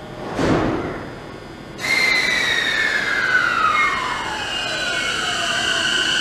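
JR East E233-7000 series electric train pulling away from the platform. A short burst of air hiss comes about half a second in. Just under two seconds in, the traction inverter whine starts abruptly, with several tones gliding down and up as the train picks up speed.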